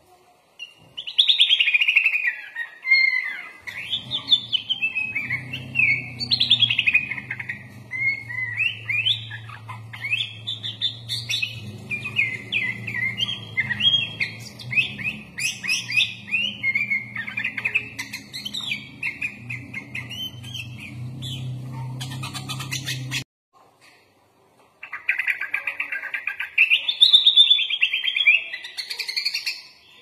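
Sooty-headed bulbul (kutilang) singing a fast, chattering song full of varied chirped phrases, of the 'full isian' kind that mixes in phrases copied from other birds. A steady low hum runs under it for much of the time. The sound cuts off abruptly about two-thirds of the way through, and after a second and a half of silence the song resumes.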